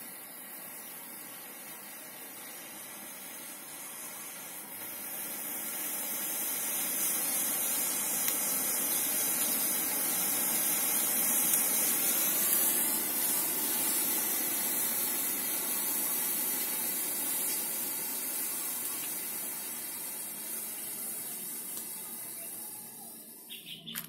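Homemade sugar-and-potassium smoke bomb burning with a steady hiss. The hiss builds over the first few seconds, is loudest in the middle as the smoke pours out, then dies down and cuts off near the end.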